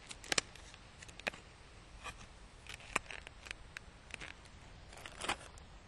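Scattered small clicks and crinkles of a clear plastic clamshell lure package being opened and handled as a soft-plastic bait is taken out.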